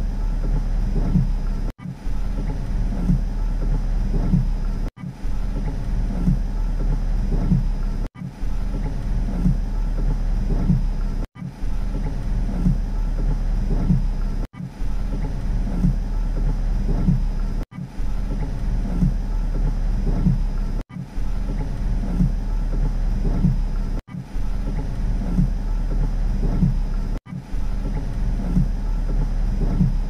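Rain on a car heard from inside the cabin: a steady, muffled low rumble that drops out briefly about every three seconds.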